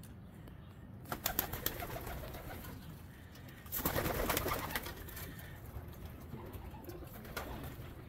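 Domestic pigeons in a loft: a run of sharp wing claps about a second in, then a loud second-long flurry of wing flapping as several birds take off, over low cooing.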